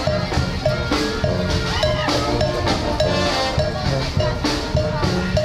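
Upbeat music with a steady drum beat and a short, repeating melodic figure.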